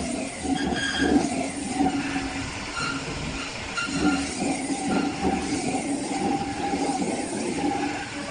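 CNC metal spinning machine forming a sheet-metal table base on a rotating mandrel, the forming roller pressing on the spinning metal. A steady running hum, with brief high metallic tones coming and going.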